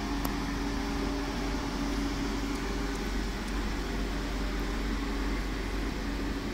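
Electric commuter train rolling past a station platform: a steady rumble with a constant hum.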